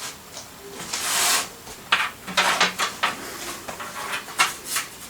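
Hands handling computer cables and connectors in a PC case: scattered clicks and light rattles, with a longer rustling scrape about a second in.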